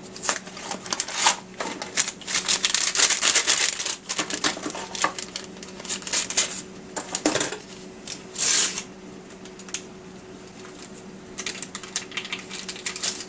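Paper and cardboard packaging crinkling and crackling in irregular bursts as a box of pudding mix is opened and its paper inner pouch is cut open with a knife and emptied into a saucepan. There is a longer rustle about eight and a half seconds in.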